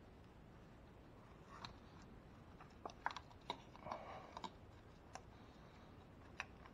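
Scattered small sharp clicks and brief plastic rustles as engine wiring-harness connectors and clips are handled and pushed into place, against a quiet background.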